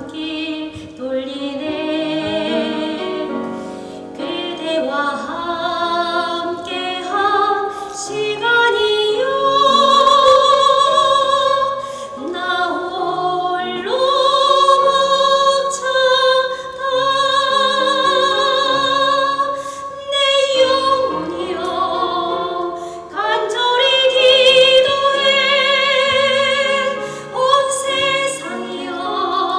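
A woman singing in an operatic style, holding long high notes with a wide vibrato.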